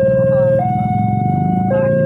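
Railway level-crossing warning alarm sounding a steady two-tone signal that alternates between a lower and a higher pitch about once a second, over a low rumble.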